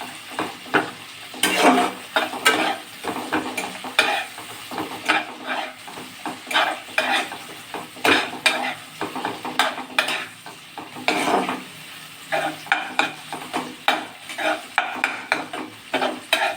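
A spatula stirring and scraping around a pan of onions and tomatoes frying in oil, which sizzles steadily under the strokes. The scrapes come unevenly, roughly one or two a second, as the mixture is fried until it turns reddish-brown.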